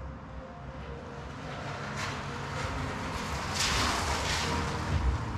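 Paper rustling and sliding on a tabletop as a cut paper stencil is handled and moved into position, loudest a little past the middle, over a steady low rumble.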